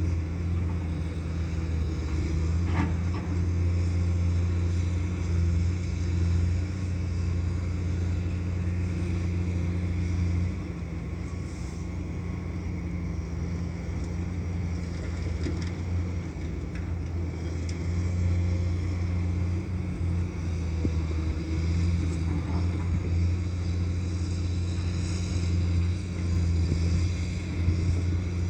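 Heavy diesel engine of an excavator loading a dump truck, running steadily with a deep hum. It eases off about ten seconds in and works harder again later, with a short knock near the start.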